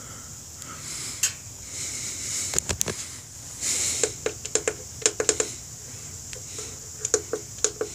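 Buttons on a DieHard battery charger's plastic front panel clicking as they are pressed over and over, singly at first and then in quick runs around the middle and again near the end.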